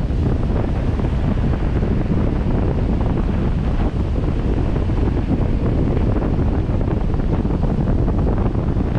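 Steady wind noise buffeting the microphone of a camera on a 4x4 driving along a sand beach, with the vehicle's running noise and the surf blended in beneath.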